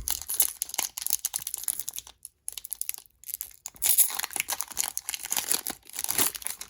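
Foil wrapper of a Pokémon booster pack crinkling and tearing as it is opened by hand, in irregular crackly bursts, with a brief pause in the middle and the loudest crinkling about four seconds in.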